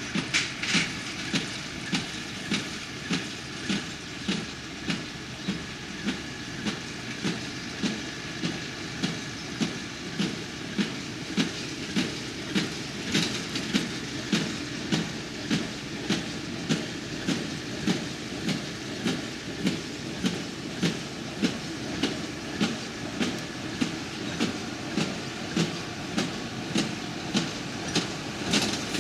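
Massey Ferguson small square baler at work behind a Massey Ferguson tractor. The baler's plunger knocks in a steady rhythm, about one and a half strokes a second, over the tractor engine's steady running.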